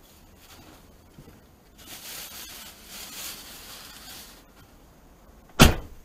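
A faint hiss swells into a louder hiss about two seconds in and fades after a couple of seconds. Then a single sharp knock or thump comes near the end.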